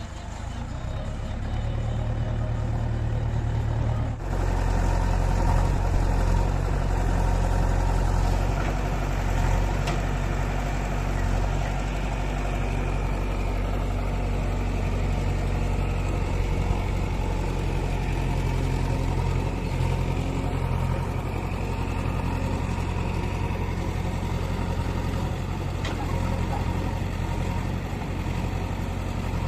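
JCB 3DX backhoe loader's diesel engine running steadily, with a sudden break about four seconds in, after which it runs louder.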